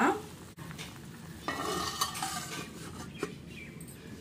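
Curry bubbling in a clay pot, with clatter and clinks of a stainless steel lid being handled and set on the pot, and a sharp clink about three seconds in.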